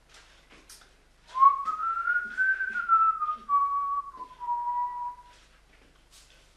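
A man whistling a short tune by mouth: a string of notes that climbs and then falls, lasting about four seconds from about a second in.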